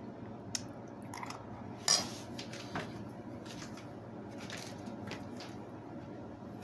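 A few light clicks and knocks of tableware being handled, the sharpest about two seconds in, over a steady low hum.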